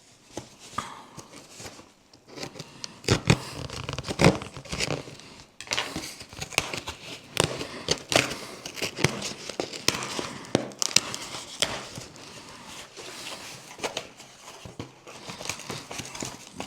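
Packaging being opened and handled: irregular crinkling, tearing and rustling of wrapping and cardboard, with scattered sharp crackles.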